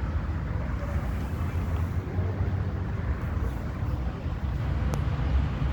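Steady low rumble of outdoor background noise, with a single sharp click about five seconds in.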